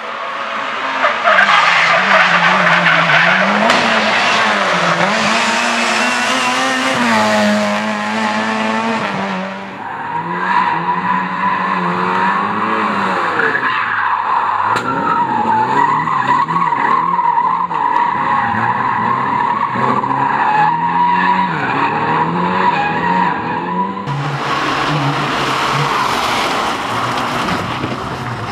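Race car engines revving hard and changing gear at speed, with tyres squealing and skidding. A heavy rushing noise covers the first nine seconds or so and returns near the end.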